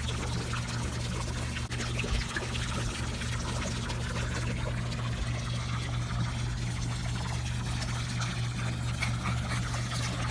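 Swimming pool water circulating: a steady trickle of water over a low, steady pump hum.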